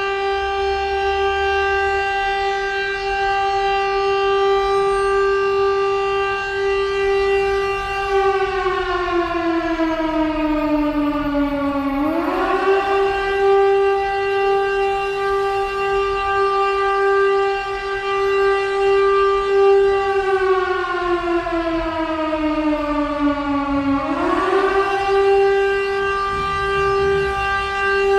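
Civil defence warning siren sounding as a practice: a loud steady wail held for about eight seconds, then sliding down in pitch over about four seconds and sweeping quickly back up to the held tone, twice.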